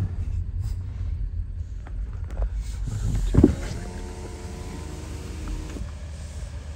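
Car power window motor whining steadily for about two seconds and then stopping, heard from inside the car over a low road rumble. A thump comes just before the whine starts.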